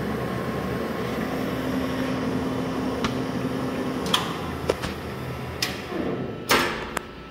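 Mori Seiki engine lathe running with its lead screw engaged: a steady mechanical hum with a few sharp clicks. Near the end there is a louder rushing clunk, then the running noise drops away.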